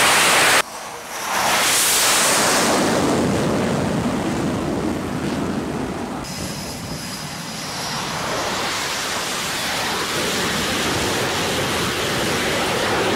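Jet aircraft engine noise on a carrier flight deck: a loud rushing sound that cuts off abruptly under a second in, swells back a second later, and runs on with a faint high whine in the middle.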